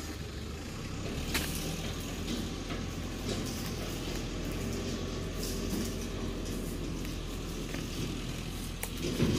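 Dodos, a pole-mounted chisel, chopping and prying at the frond bases of a young oil palm during pruning: irregular sharp strikes and cracks over a steady hiss and low rumble.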